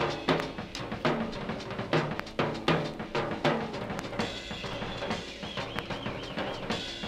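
Drum kit played live in a busy pattern of snare, rimshot and bass drum hits, strongest in the first few seconds; faint wavering high tones come in about four seconds in.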